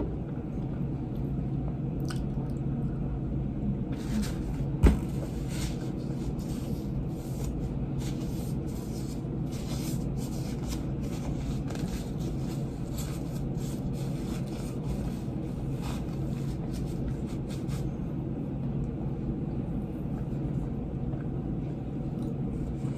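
Steady low room hum with scattered small clicks and handling noises from hands working with small objects at a table. One sharper click comes about five seconds in.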